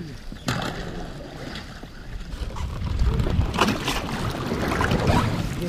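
Inflatable rowing boat pushing through thin new river ice: the ice crunches and scrapes against the hull as the oars work it. There are a few sharper cracks about half a second in and around four seconds in, and wind rumbles on the microphone.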